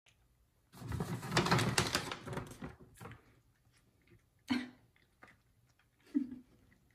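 F2 Savannah cat crunching dry kibble out of a large plastic food container: a dense run of crunching and clicking starts about a second in and lasts about two seconds, followed by two separate sharp sounds later on.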